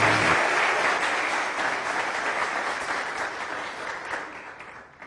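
Studio audience applauding, loud at first and then fading steadily until it dies away near the end.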